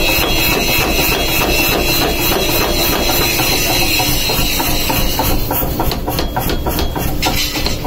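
Power hammer pounding red-hot leaf-spring steel on its anvil, rapid even blows about five a second over the running machine.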